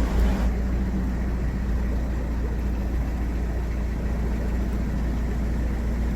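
Narrowboat diesel engine running steadily at low revs, a constant low rumble.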